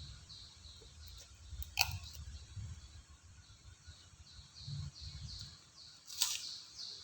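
A small bird chirping repeatedly, short high falling notes about three a second, getting more frequent in the second half. Two sharp clicks stand out, one about two seconds in and one near the end.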